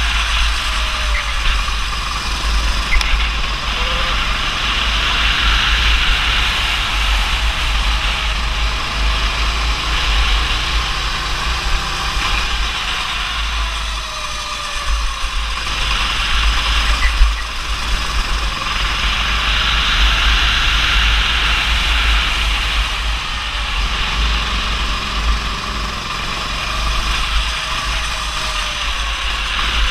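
Go-kart engine running on track, its pitch rising and falling as the throttle is worked through the corners, under a heavy low rumble of wind on the kart-mounted camera's microphone.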